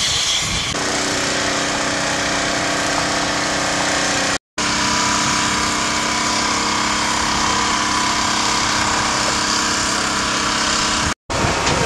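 Truck-mounted crane's engine and hydraulics running steadily under load as it lifts a boat, a constant mechanical hum. A brief hiss opens it, and the sound cuts out abruptly twice.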